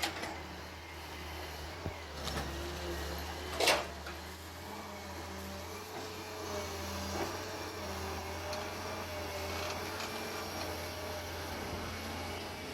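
Heavy digging machine's diesel engine running steadily under load, with a whine that rises and falls as the hydraulics work. Sharp knocks come at the start and twice more in the first four seconds, the loudest just before four seconds in.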